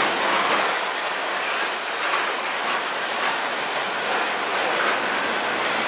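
Freight train of covered hopper cars rolling past: the steady noise of steel wheels running on the rails, with a few scattered clicks.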